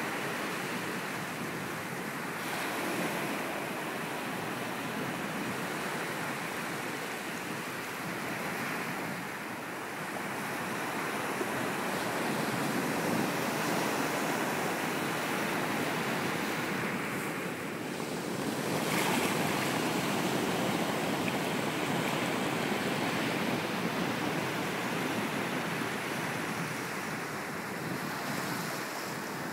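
Ocean surf breaking and washing up on a sandy beach: a continuous rushing wash that swells and ebbs as each wave comes in, loudest about two-thirds of the way through.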